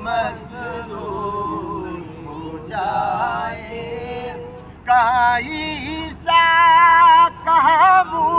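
A man singing an Urdu devotional naat in long, drawn-out melodic phrases, with no clear words. The voice grows much louder about five seconds in, on high held notes that waver in pitch.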